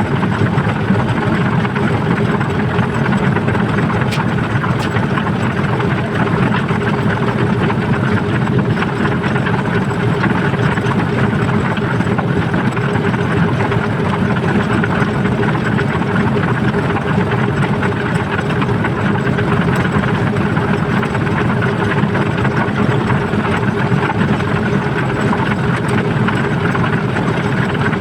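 A loud, steady engine or machine running without change.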